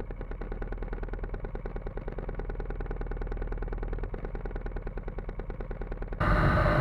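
Go-kart engine running slowly with a steady pulse, about ten beats a second. Near the end the sound cuts suddenly to a louder, fuller engine noise.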